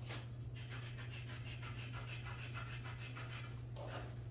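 Willard's tip shaper rasping on a Kamui Super Soft leather cue tip in quick, even strokes, shaping and scuffing the tip so it takes chalk.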